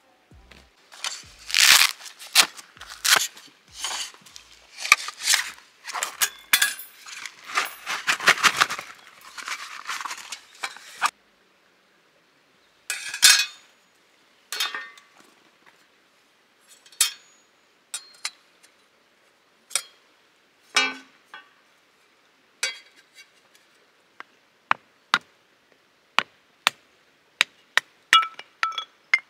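Metal plates of a flat-pack Fennec Lite fire pit clinking and clattering as they are handled and slotted together. Dense rattling comes first, then separate sharp clicks, quickening into a run of clicks about two a second near the end.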